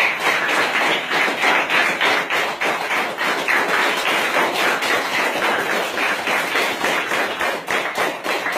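Applause from a class of schoolchildren: many hands clapping quickly and continuously.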